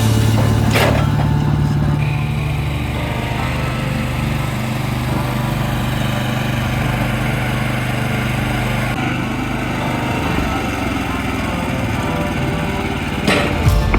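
Small engine running steadily, its pitch shifting slightly about two seconds in and again near ten seconds.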